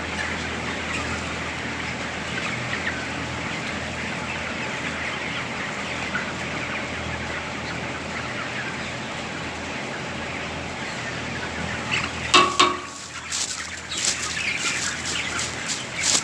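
A large flock of chickens in a poultry house keeps up a dense, steady chatter of clucking and cheeping. From about twelve seconds in, several sharp knocks or clatters cut through it.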